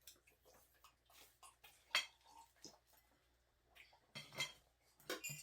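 Cutlery clinking and scraping against plates and bowls during a meal: scattered small clinks, with one sharp clink about two seconds in and a quicker run of clinks near the end.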